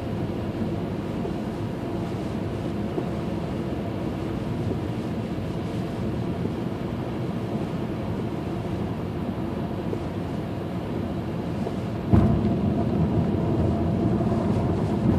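Steady drone of a car driving on a rain-soaked highway, heard from inside the cabin: engine and tyre noise on wet pavement. Near the end a sudden knock comes, and after it the drone is louder.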